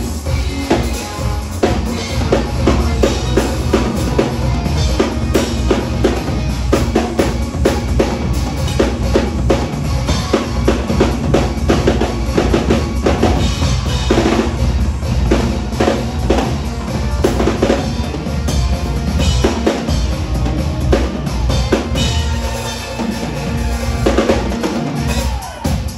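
Premier drum kit played hard and fast: dense snare and bass drum strokes with rimshots and cymbals, easing off briefly near the end.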